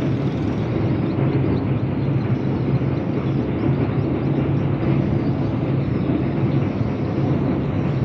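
Tugboat's engine running steadily under way, a constant low drone with an even rushing noise over it.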